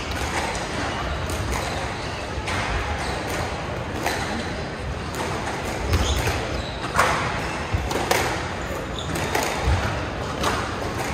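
Squash rally: the racket strikes the ball and the ball smacks off the court walls, sharp hits about once a second that ring in the echoing court.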